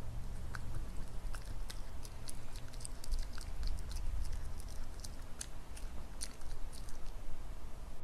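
A small dog chewing noodles: a run of quick, irregular clicks and smacks of its jaws and mouth.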